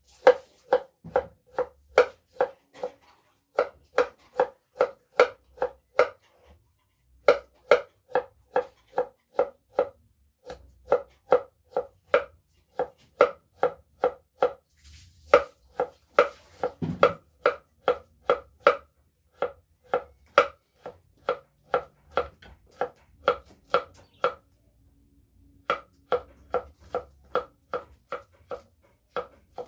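Kitchen knife chopping food on a wooden cutting board: steady knocks about three a second, in runs broken by a few short pauses.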